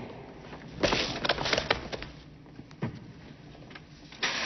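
Electric shock sound effect from a car's anti-theft system: a cluster of sharp crackles and snaps about a second in, a lone click a couple of seconds later, and a loud hiss starting near the end.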